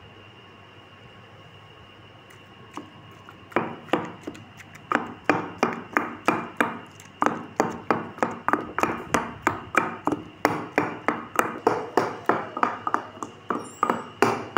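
Wooden pestle pounding soft roasted eggplant in a stone mortar: a steady run of dull knocks, about three a second, starting about three and a half seconds in. The eggplant is being mashed for baingan bharta.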